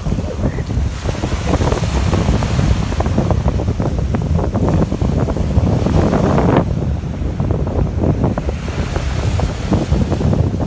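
Sea waves washing onto a beach, with wind buffeting the microphone and rumbling underneath. One wave builds to a peak about six seconds in, then falls away suddenly.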